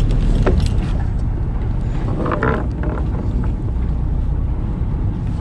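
Fishing boat's engine running with a steady low rumble, with wind on the microphone.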